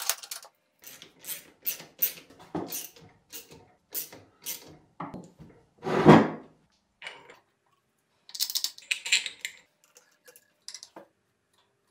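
Metal parts of an asynchronous electric motor clicking and knocking as it is put back together: a quick run of small clinks, a louder knock about six seconds in as the finned end cover goes on, then a few more clicks from the bolts.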